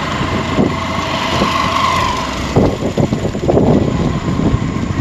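Motorcycle taxi ridden along a city street, its engine running under a steady rush of wind and road noise. About halfway through, irregular low thumps of wind buffeting the microphone join in.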